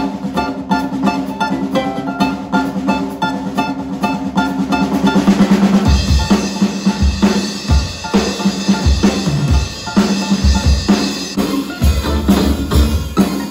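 Music: a plucked-string tune, joined about six seconds in by a drum kit and bass with a steady beat.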